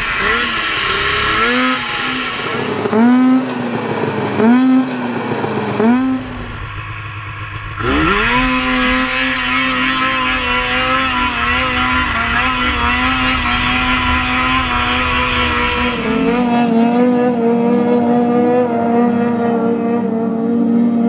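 Snowmobile engine revving in about four short blips, then after a brief drop running at a steady high pitch under held throttle as the sled skims across open lake water.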